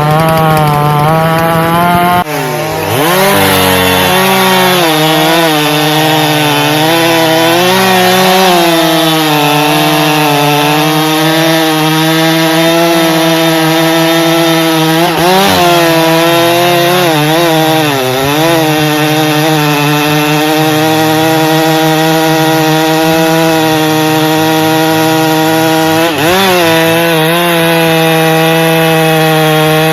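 Two-stroke chainsaw running at high revs while cutting into a log. Its pitch dips and recovers several times as the chain bogs under load in the wood.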